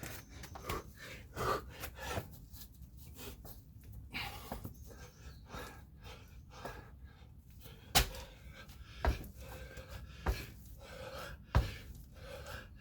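A man panting hard to catch his breath between sets of an intense workout. About two-thirds of the way in, four sharp thumps come roughly a second apart.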